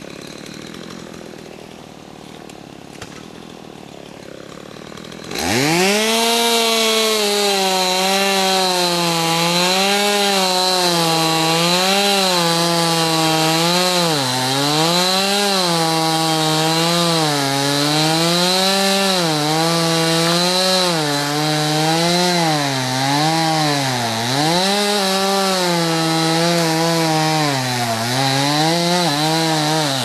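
Two-stroke chainsaw cutting through a fallen alder log. About five seconds in it revs up to full throttle, and its pitch dips and recovers again and again as the chain bites into the wood under load.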